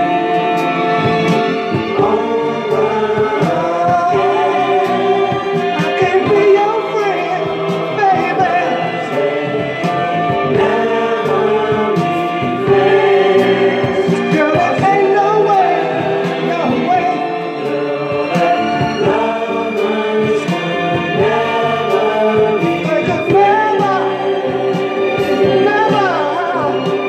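Song with several voices singing in harmony over instrumental backing, the melody lines gliding and wavering.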